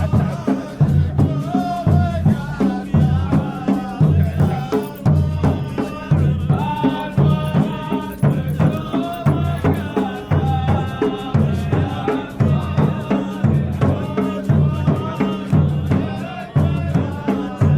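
Instrumental passage of an Arabic wedding song: a melody over a steady, regular drum and percussion beat.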